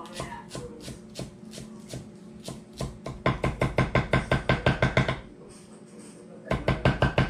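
Kitchen knife chopping fresh cilantro on a wooden cutting board. Light, scattered taps come first; about three seconds in, a fast run of loud chops at about seven a second, a short pause, then another fast run near the end.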